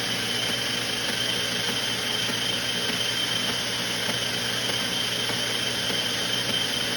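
Treadmill running steadily with die-cast toy cars riding its belt: an even motor-and-belt noise with a steady high whine.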